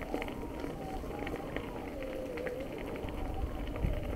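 Bicycle in motion: steady rumble of tyres and wind on the microphone, with scattered light clicks and rattles from the bike.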